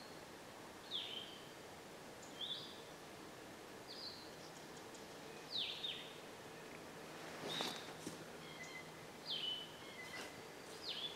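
Songbird calling in woodland: short, high, slurred notes repeated about every second and a half. About two-thirds of the way in, two brief sharp noises, a crack or knock, stand out about as loud as the bird.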